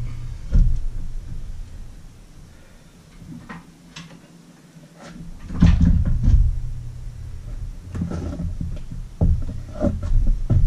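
Irregular metal knocks and clunks as an outboard power head hanging from a hoist chain is worked loose from its midsection. A quieter stretch a couple of seconds in, then louder clusters of clunks from the middle on.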